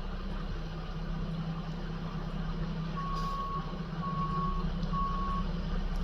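Mack McNeilus front-loader garbage truck's diesel engine running steadily, its backup alarm sounding three beeps about a second apart from about halfway through, as the truck reverses.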